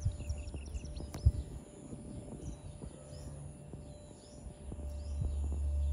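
Small birds chirping in short high calls over a steady low rumble, with one sharp knock about a second in.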